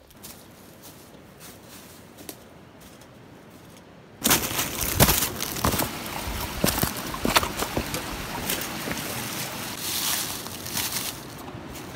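Small mountain stream trickling and splashing over rocks, starting suddenly about four seconds in, after only faint outdoor background.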